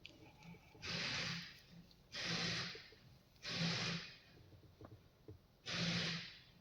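A person's breathing close to the microphone: five even breaths, in and out, about one every second and a half.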